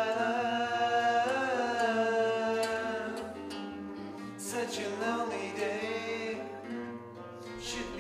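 Two or more nylon-string classical guitars played together, with a voice singing along.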